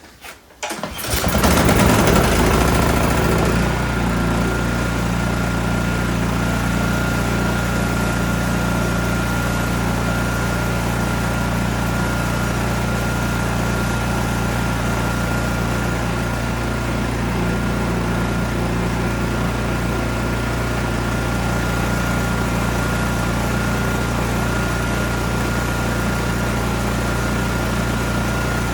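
Ariens Platinum SHO 24-inch snow blower's single-cylinder engine cutting in sharply about a second in, surging, then running steadily under load with a steady high whine over the engine note.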